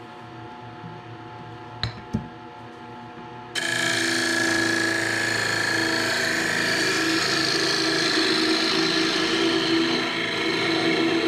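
Harbor Freight 10×18 benchtop mini wood lathe running with a steady motor hum, with two sharp clicks about two seconds in. About three and a half seconds in, a gouge bites into the spinning teak bowl and a loud, steady cutting noise takes over as the bowl is hollowed.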